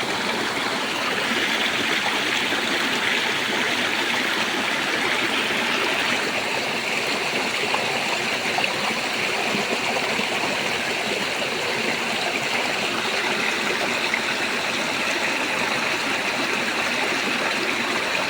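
Water pouring steadily over a small man-made waterfall, a continuous rushing and splashing.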